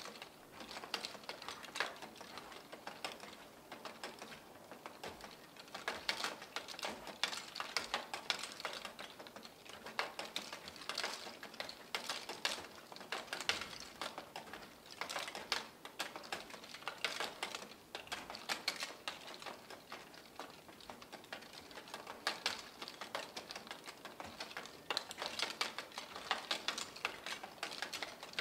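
Bicycle wheel rigged as a miniature Ferris wheel, turned by hand: a fast, irregular clicking and rattling from the wheel and its hanging cabins, coming in bursts as it is pushed round.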